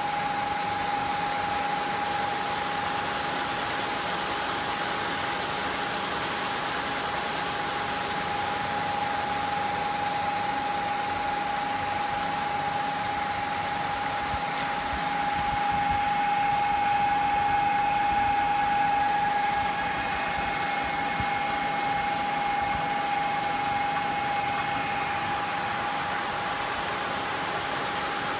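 A 3 HP (2.2 kW) induction motor and Nissei ratio-15 gear reducer driving a shrimp-pond paddlewheel aerator, running steadily: a steady whine over an even hiss, growing a little louder for a few seconds past the middle.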